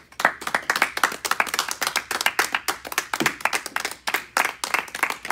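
A small audience applauding: many fast, close hand claps.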